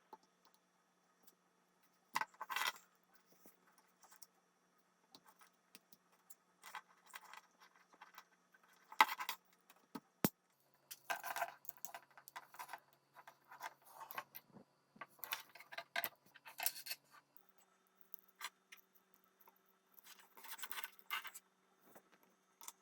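Intermittent faint rustling and clinking of small hard objects being handled, in irregular short bursts, with one sharp click about ten seconds in.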